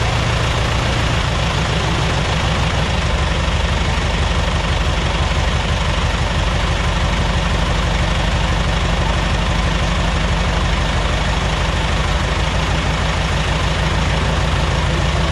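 RANS S-21 light aircraft's engine running steadily at low power, propeller turning, on the airframe's first engine run.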